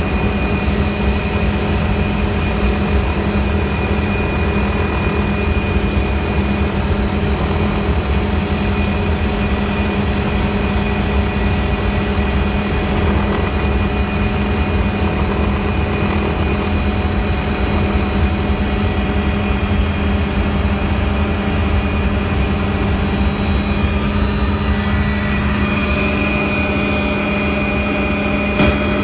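Helicopter turbine engine and rotors running steadily: a constant low drone with a thin high turbine whine over it.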